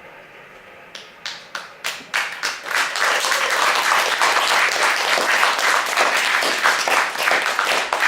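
Audience applauding after a song: a few scattered claps about a second in, swelling within a couple of seconds into full, steady applause.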